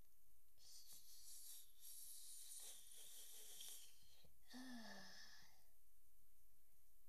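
Faint breathy exhaling close to the microphone, a long hiss followed a moment later by a short sigh whose pitch falls.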